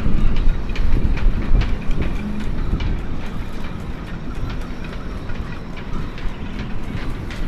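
Strong gusting wind rumbling on the microphone, with a scatter of small sharp ticks and clicks throughout; the gusts are strongest in the first two seconds and then ease a little.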